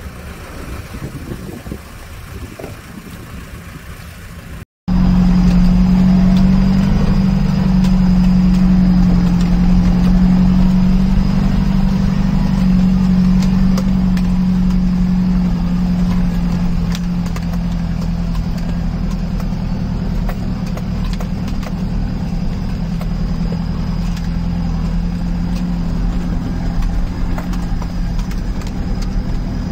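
An off-road 4x4's engine runs at a steady low drone, heard from inside the cabin as it drives slowly along a dirt track. The drone starts abruptly about five seconds in, after a quieter stretch of outdoor noise with a vehicle out on a muddy track.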